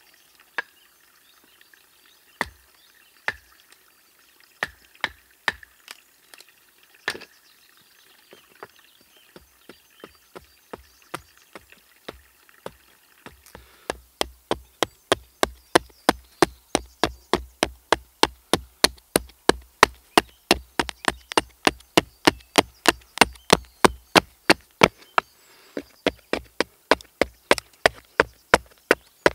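A knife chopping into the edge of a wooden board to trim its shape, each stroke a sharp wooden knock. The strokes come a second or more apart at first, then settle into a steady run of about three a second from about halfway through.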